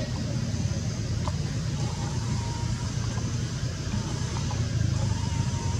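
Steady low outdoor rumble, like distant road traffic, with a faint thin high tone drawn out briefly about two seconds in and again near the end.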